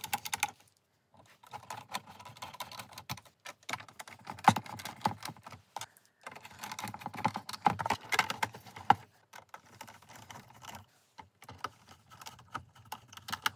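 Hand screwdriver driving screws into the plastic housing of an LED moving-head light, with dense clicking and rattling of the plastic parts and short pauses about one, six and eleven seconds in.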